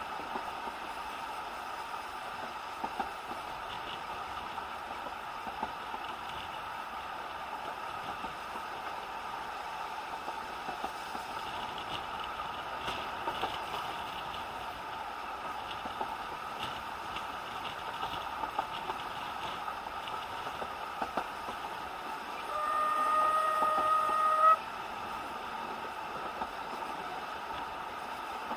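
Steam locomotive of the narrow-gauge Isle of Man Steam Railway sounding its whistle once, a single note lasting about two seconds, near the end. Under it runs the steady rumble and small wheel clicks of the moving train.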